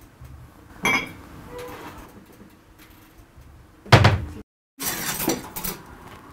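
Kitchen cupboard door and crockery being handled: a knock about a second in, a loud thump near the middle as the cabinet door shuts, then a run of clinks and clatter at the sink.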